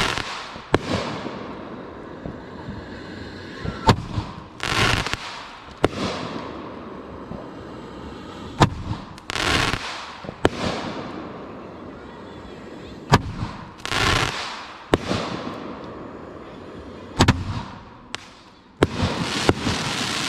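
Aerial firework shells fired from mortar tubes: each launch is a sharp thump, followed about a second later by the shell bursting in a noisy wash that lasts about a second. Around five shots go off in turn, roughly four to five seconds apart.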